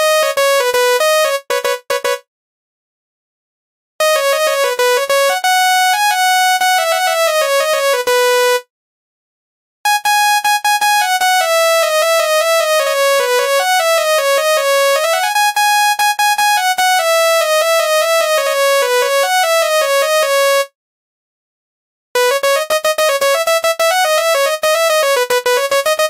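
Telolet bus horn tune: a quick melody of bright, buzzy notes played in four phrases with short dead-silent pauses between them.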